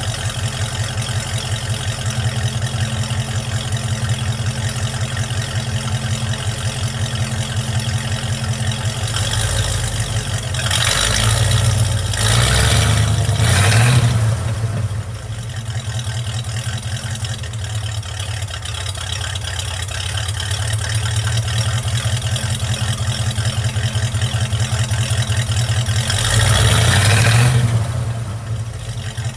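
Project truck's engine idling steadily after a warm start, now with its intake vacuum leak fixed, and revved several times in quick succession about a third of the way in and once more near the end before dropping back to idle.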